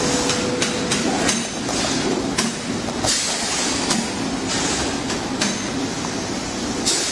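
Steady mechanical running noise with short clicks and knocks scattered through it.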